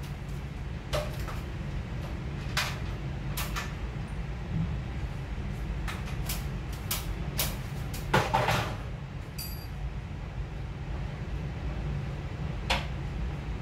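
Scattered light knocks and clatters from climbing an aluminium stepladder and handling the wooden ceiling frame, a cluster of them a little past the middle, over a steady low hum.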